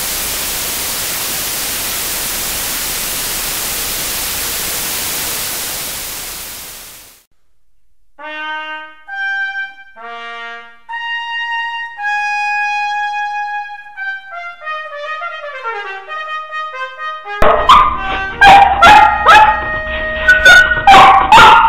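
Steady TV-static hiss that fades out after about six seconds, followed by a short trumpet fanfare of held notes. Near the end, dogs bark repeatedly over the music.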